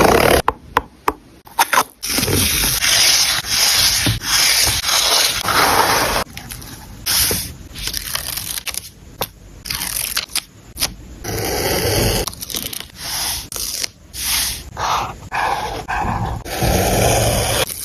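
Paper and stickers handled close to the microphone while a planner page is laid out: irregular bursts of scraping and rubbing, with a few sharp clicks in the first couple of seconds and a longer continuous scrape soon after.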